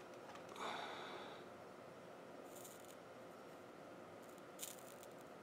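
Near quiet room tone with faint handling noises from a soldering iron and solder wire: a short soft rustle about half a second in and brief light hisses twice later on.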